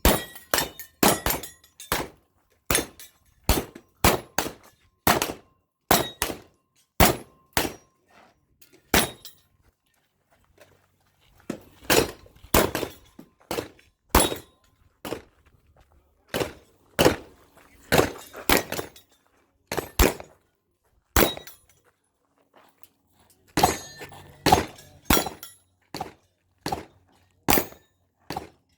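Pistol shots fired during a timed match stage: sharp reports in quick pairs and short strings, broken by pauses of a second or more between groups.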